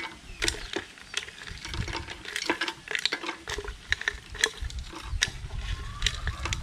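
Ice cubes clinking against a glass jar and spoon as they are scooped out with a long spoon and dropped into a glass of orange juice: an irregular run of sharp clinks.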